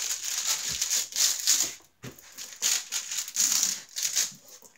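Clear plastic protective film on a diamond painting canvas crinkling as hands smooth it flat. It comes in two spells, with a short pause about two seconds in.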